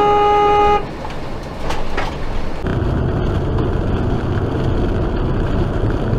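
A car horn sounds one steady blast for just under a second and cuts off sharply. After it comes steady road and engine noise heard from inside a moving car.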